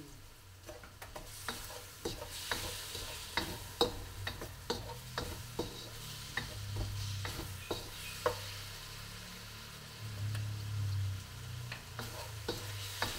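Chicken and ginger sizzling in a hot wok while a wooden spoon stirs them, knocking and scraping against the pan in irregular sharp taps over the steady frying hiss. A low hum swells twice partway through.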